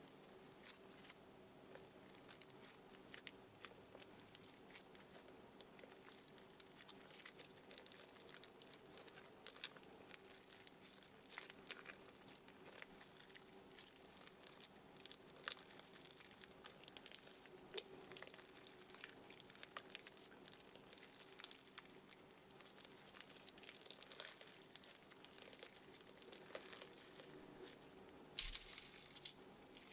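Yellow bead slime being squished and worked by hand: soft, scattered crackles and clicks of the beads inside the slime, with a louder cluster of crackles near the end. A faint steady hum runs underneath.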